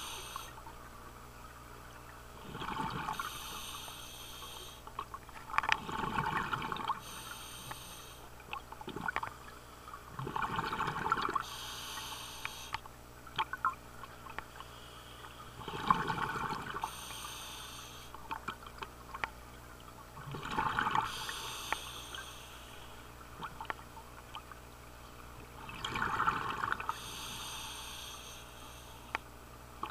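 Scuba diver breathing through a regulator underwater, about six breaths roughly five seconds apart. Each breath is a rushing inhale followed by a bubbling, crackling exhale.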